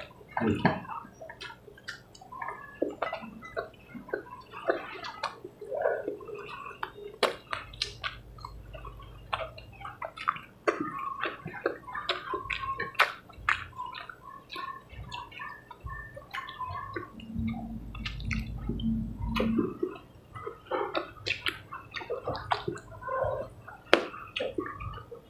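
Close wet chewing and lip-smacking of people eating with their hands, with many small irregular clicks and smacks.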